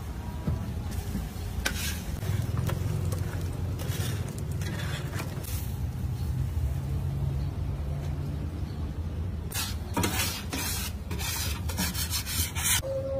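Metal spatula scraping and rubbing on a flat-top griddle in irregular strokes, over a steady low hum.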